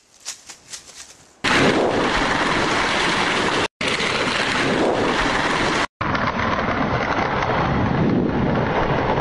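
A loud, steady rush and rumble of noise like a storm, starting about a second and a half in and chopped by two abrupt cuts. It is the sound for a tree crashing down in the woods.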